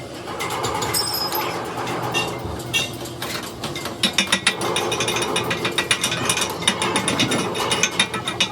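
Rapid metallic clicking with a ringing tone, a ratchet-like mechanism being worked, turning into a fast, even rattle about halfway through.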